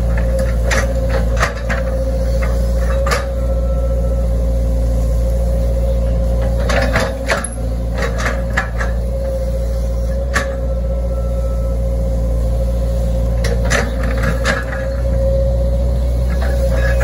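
Hitachi Zaxis 110 excavator's diesel engine running steadily under load, with a steady whine over the low hum. Scattered knocks and clanks come as the bucket digs and scrapes into the grassy bank, some in quick clusters.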